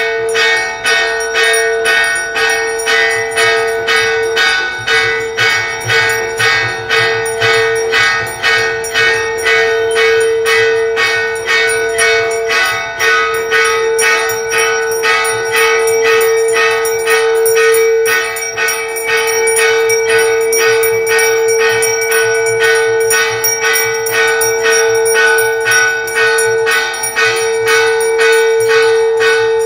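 Temple aarti bells struck rapidly and evenly, about three strokes a second, over a steady ringing hum that never stops.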